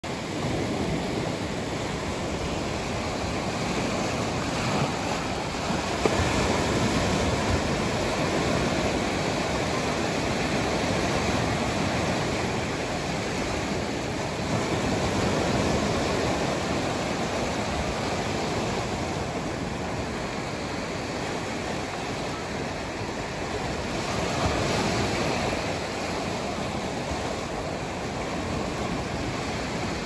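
Small ocean waves breaking and washing up the shore: a steady rush of surf that swells and eases every several seconds.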